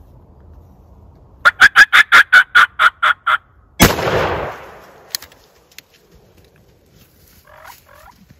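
A rapid run of about a dozen sharp turkey notes, fading at the end, then about half a second later a single loud shotgun blast that echoes away: the shot that kills the tom.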